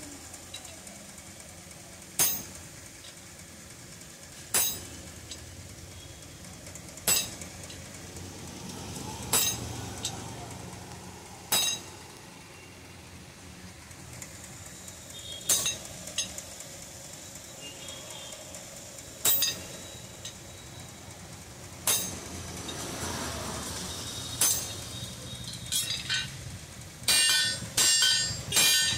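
Hammer blows on a steel rod held on an anvil while forging a chisel. Single ringing sledgehammer strikes come every two to three seconds, then near the end a quick run of several strikes a second.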